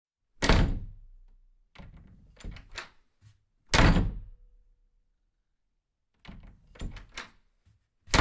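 Three heavy thuds about four seconds apart, each loud and sudden, with a few lighter knocks between them.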